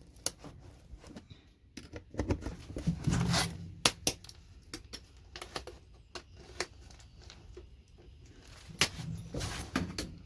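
Irregular clicks, taps and scrapes of metal on a circuit board as a connector's metal bracket is pried back and its screws worked at with hand tools, with two longer rasping scrapes.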